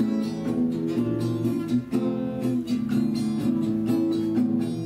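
Acoustic guitar strummed in a steady rhythm, ringing chords with no voice over them.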